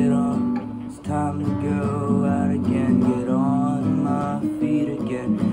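Acoustic guitar strummed and picked, with a man's voice carrying a wavering melody over it for a few seconds from about a second in.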